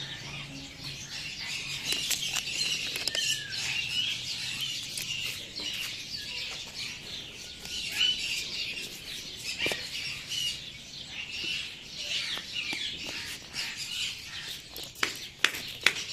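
Many small birds chirping and twittering, with a few sharp clicks near the end.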